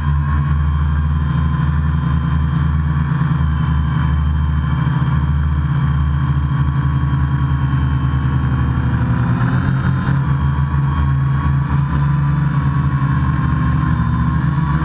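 Drone's electric motors and propellers running, a steady buzzing whine picked up close by the camera riding on the drone; the pitch shifts slightly about two-thirds of the way through and again near the end.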